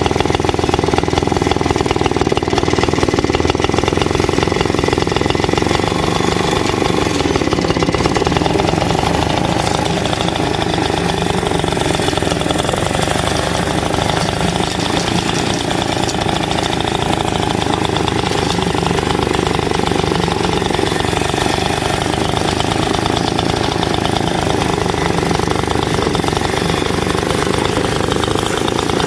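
Two-stroke engine of a 1950s Greens roller lawn mower running steadily at a fast, even firing rate.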